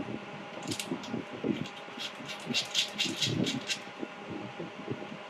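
Foot switch plug being pushed into its socket on a laser welding machine and the cable handled: a run of small clicks and rattles from about one to four seconds in, with a few dull knocks, over a steady hum.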